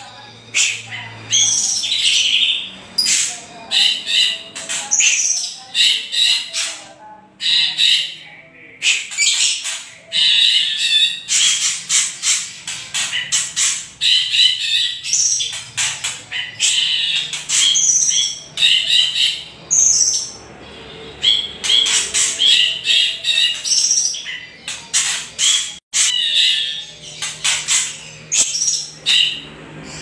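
Harsh, chattering 'kretekan' calls of a white-rumped shama and a greater green leafbird: loud bursts of rapid clicks and high chirps, repeated with short gaps. These are agitated calls that bird keepers play to provoke a caged bird into answering.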